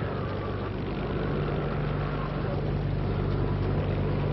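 Storm sound effect: a steady rush of wind and sea with a low steady drone beneath, as a boat runs through a storm.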